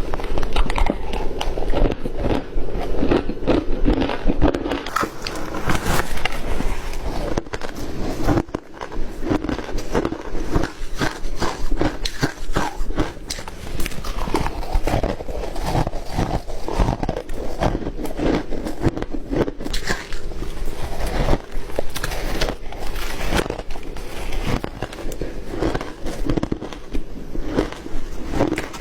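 Ice being bitten and chewed, a dense run of crisp crunches and cracks that keeps going with only brief let-ups.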